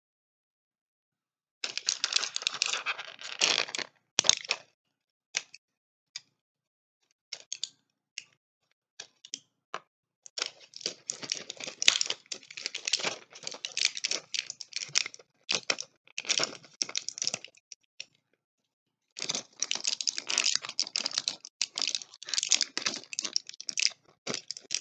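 Mucinex DM medicine packaging handled close to the microphone: dense runs of crinkling and clicking, with scattered single clicks in between.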